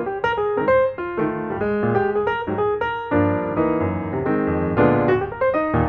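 Background piano music, a flowing melody of quick notes, with fuller chords coming in about halfway through.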